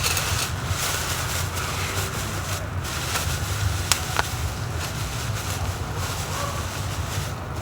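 Wind rumbling steadily on the microphone, with a few faint light clicks.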